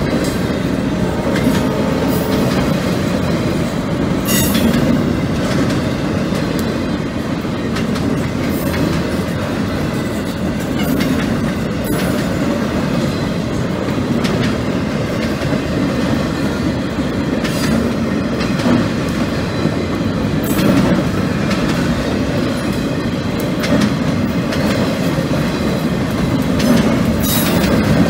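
Empty freight flat cars rolling past close by: a steady rumble of steel wheels on rail, with clicks as the wheels cross rail joints and a couple of brief high wheel squeals.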